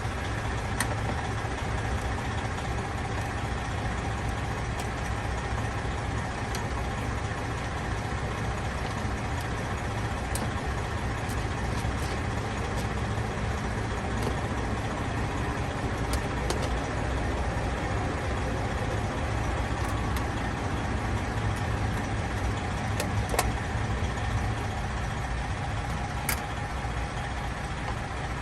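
Heavy diesel truck engine idling steadily, a constant low hum, with a few light clicks of hand work on plastic dash trim scattered through it.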